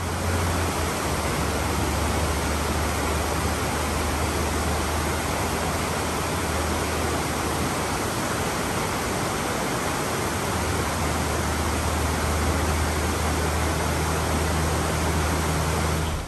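Flooded river rushing over a low dam: a steady wash of white-water noise with a deep rumble underneath, cutting off abruptly near the end.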